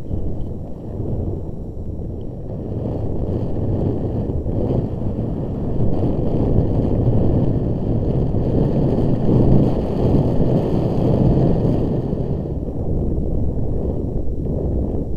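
Steady low rush of wind buffeting the microphone of a camera on a moving mountain bike. The bike rattles over a rocky, gravelly trail underneath.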